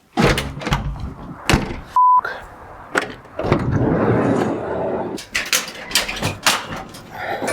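Workshop clatter: a string of sharp knocks and bangs, with a short steady censor bleep about two seconds in.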